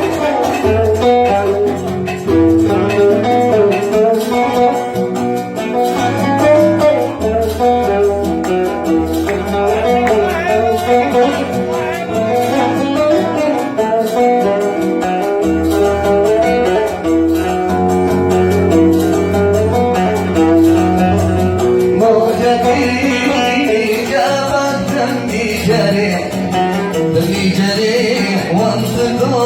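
Oud playing a running melodic passage of a Yemeni Sanaani song, the notes moving quickly over a steady low bass.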